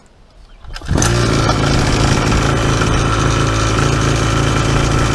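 Small 50cc two-stroke pocket bike engine on a motorized bicycle, coming in suddenly about a second in and then running steadily at an even pitch.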